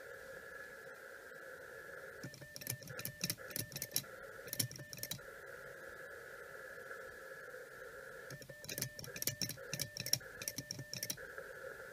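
Steady filtered hiss from a small shortwave transceiver's receiver playing through a resonant CW speaker. Twice a dual-lever Morse paddle clacks in quick runs of clicks as Morse is sent, and the receiver hiss cuts in and out while keying.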